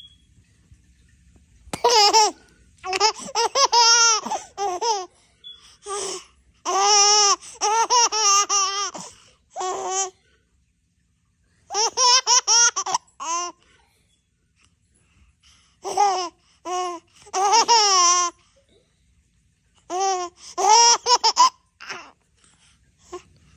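Baby girl laughing in high-pitched fits of giggles, in five bouts of a few seconds each separated by short pauses.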